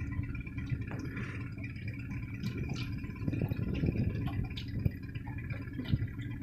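Small aluminium fishing boat's motor running slowly for trolling, a steady low hum, with water splashing and lapping at the hull.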